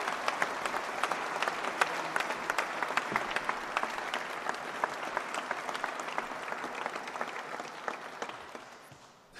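Audience applause, many people clapping, dying away near the end.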